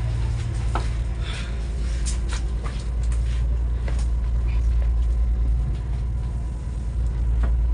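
Fishing boat's engine running with a steady low drone, with scattered short knocks and rustles of fish being handled and laid in a row in the hold.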